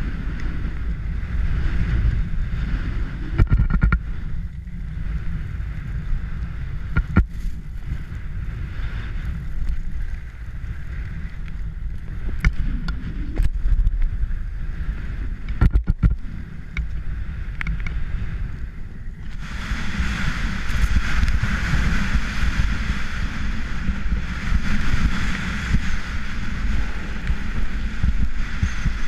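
Atomic Twins skis hissing and scraping over groomed snow while wind buffets the camera's microphone in a steady low rumble, with a few sharp knocks. About two-thirds of the way through, the snow hiss grows louder and brighter.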